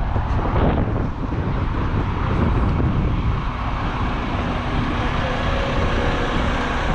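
Large coach's diesel engine idling: a steady low rumble, with a faint hum coming in about halfway through.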